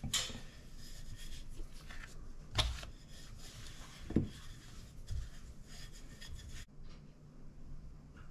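Wooden rolling pin rolling out dough on a floured mat, a steady rubbing sound with a few light knocks.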